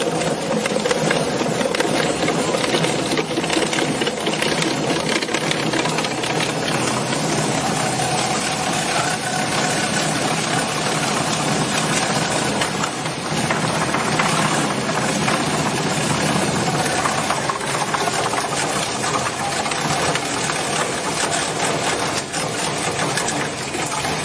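Large single-shaft tire shredder running: a loud, steady mechanical din with a dense rattle of fine clicks throughout.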